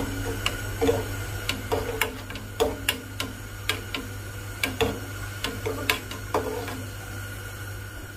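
Wire whisk clicking against the sides of a nonstick pot while yogurt and pasta cooking water are whisked together, two or three light clicks a second that stop near the end. A steady low hum runs underneath.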